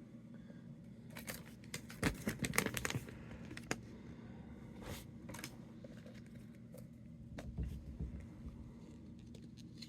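Small plastic Lego minifigure pieces being handled and snapped together, with light rustling: a quick run of clicks and rattles about two seconds in, then a few scattered single clicks.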